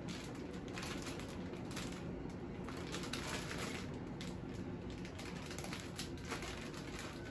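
Resealable plastic bags of shredded cheese being handled: faint, irregular crinkling and clicking of the plastic, over a low steady hum.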